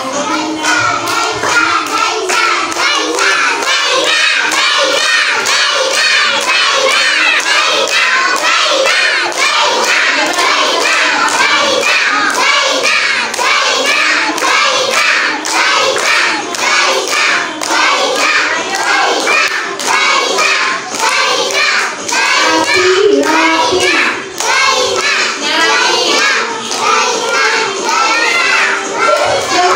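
A group of young children singing and shouting together, with hand clapping.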